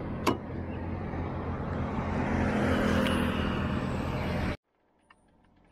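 Roadside highway traffic: the rushing noise of passing vehicles swells to a peak about three seconds in, with one sharp click near the start. The sound cuts off abruptly to near silence near the end.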